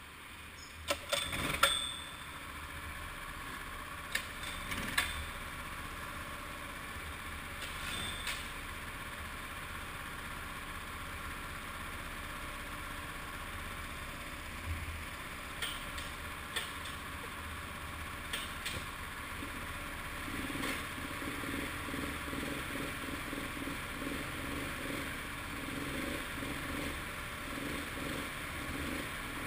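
Go-kart engines idling in the pit lane, a steady hum with a few sharp knocks, the loudest about a second or two in. About twenty seconds in, a nearer kart engine's rhythmic running grows louder.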